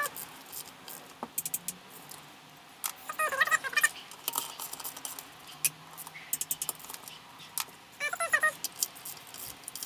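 Ratchet wrench clicking in quick runs as it tightens the gearbox case bolts, with metal tools rattling. A cat meows twice, a few seconds in and near the end.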